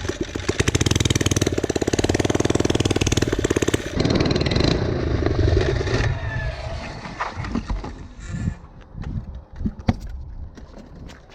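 A motor or engine running with a fast, even beat for about six seconds, its note changing about four seconds in, then stopping, leaving scattered clicks and knocks.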